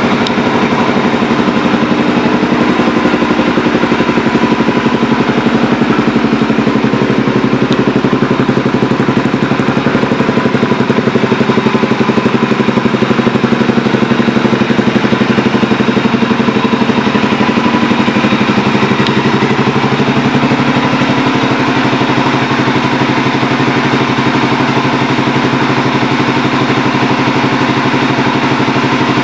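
2015 Suzuki DR-Z400SM's single-cylinder four-stroke engine idling steadily through an MRD racing exhaust, just after being started.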